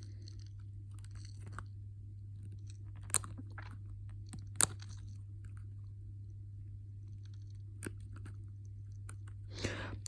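Someone chewing crunchy food close to the microphone: faint scattered crunches with two sharper clicks, over a steady low hum.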